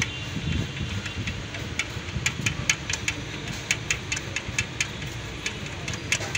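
Light metallic clicks, about three or four a second from about two seconds in, as the mounting bolt of a BMW starter motor is turned in and tightened. A steady low hum runs underneath.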